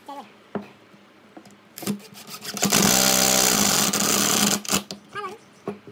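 Cordless impact driver driving a screw into wood, a steady power-tool run of about two seconds that starts a little after halfway and stops abruptly. A few light knocks of wood and hardware come before it.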